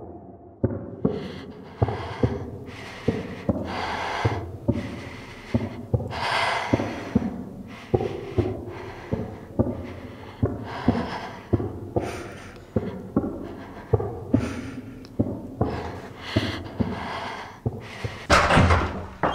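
A person's heavy, rapid panting breaths, with a regular low thump under them about every two-thirds of a second. A louder rush comes near the end.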